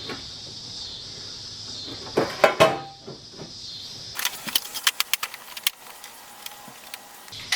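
Crickets chirping steadily, with sharp metallic clicks and clatters of parts being handled, the loudest about two seconds in and a run of rapid irregular clicks in the second half.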